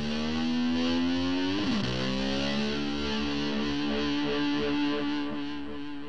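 Background rock music: distorted electric guitar holding long sustained notes, sliding in pitch into a new held note about two seconds in. It eases off near the end.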